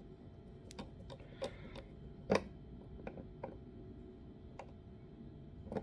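Faint, irregular clicks and ticks of a small hand screwdriver turning a tiny screw into the gimbal's plastic housing, the loudest click a little over two seconds in.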